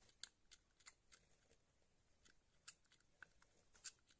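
Faint, scattered clicks and taps of a small cardboard perfume box being handled, about ten in all, the two sharpest a little after halfway and near the end.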